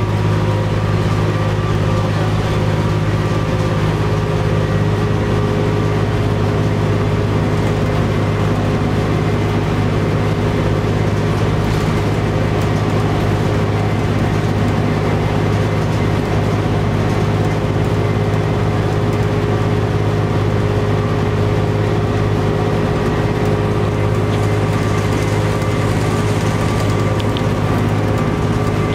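1998 New Flyer D40LF transit bus with a Cummins ISC engine and Allison B400R transmission, running with a loud, steady engine note that holds the same pitch throughout.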